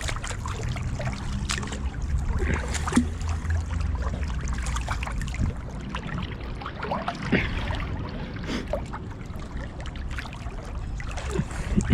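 Swimming-pool water splashing and sloshing as a person moves through it, with many small irregular splashes over a steady low rumble.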